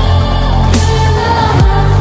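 Background music with a heavy, sustained bass line.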